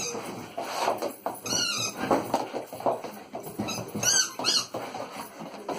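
A lurcher giving a run of high-pitched whines and yelps, their pitch bending up and down, the strongest about a second and a half in and again about four seconds in.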